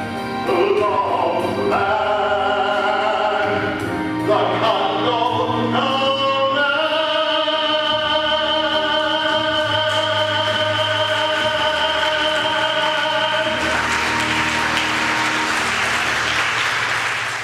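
A man singing a show tune with musical accompaniment, building to one long held final note of about seven seconds. Near the end the note stops and audience applause takes over.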